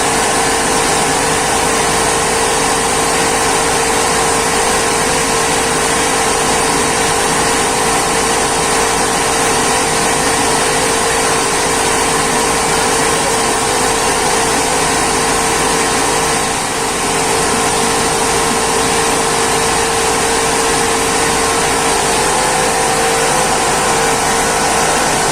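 Rice mill machinery running steadily: a loud, even mechanical drone with a constant hum, dipping briefly about two-thirds of the way through.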